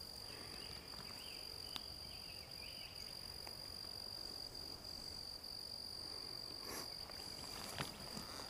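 A steady, high-pitched insect drone holding one note, with a few faint short calls in the first few seconds and soft footsteps on sandy ground near the end.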